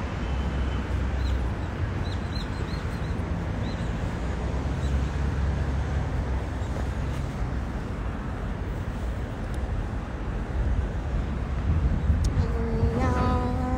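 Outdoor street noise picked up by a phone while walking: a steady rumble of wind on the microphone and traffic. A few short high chirps come about two seconds in, and a steady pitched tone sounds for about a second near the end.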